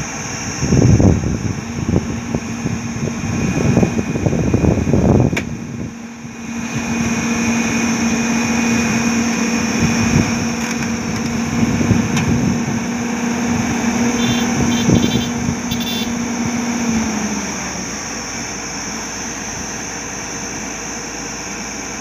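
Hyundai crawler excavator's diesel engine running under load as its hydraulics push on the boom and bucket. There is heavy uneven rumbling for the first few seconds, then a steady hydraulic whine that stops near the end.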